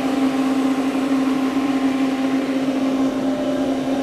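Makino A51 horizontal machining center running under power, a steady hum with one strong low tone and fainter higher tones above it.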